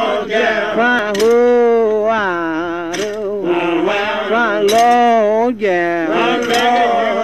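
A lone voice singing a slow, unaccompanied lament in long held notes that slide and waver in pitch, with short breaths about three seconds in and near five and a half seconds.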